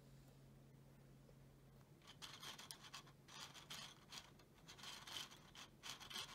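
Faint scratchy rubbing from plastic parts being handled, about six or seven short irregular bursts starting about two seconds in. A faint low hum before them stops about two seconds in.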